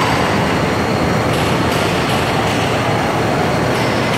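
Automatic line polishing machine for granite slabs running: a loud, steady, dense mechanical noise from its rotating polishing heads and drive.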